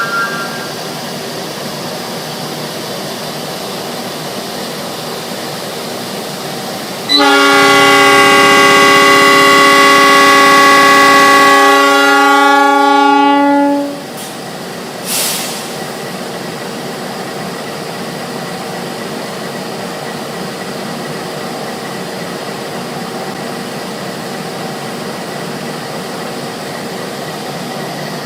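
Horn of CC 206 13 96, a GE diesel-electric locomotive, sounding one long blast of several notes together for about seven seconds, the notes dropping out one after another as it ends. A steady mechanical hum runs under it, and a short hiss follows soon after the horn stops.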